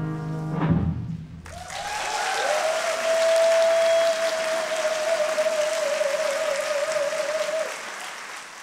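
A swing tune with brass ends abruptly about a second and a half in, and an audience breaks into applause. A single long held note, likely a cheer, sounds over the clapping for about five seconds, and the applause fades near the end.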